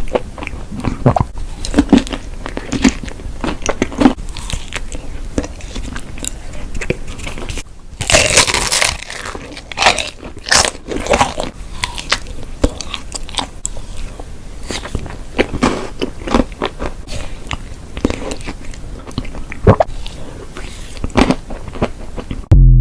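Close-miked eating: irregular crunchy bites and chewing of crisp food, with a dense run of crunching about eight seconds in.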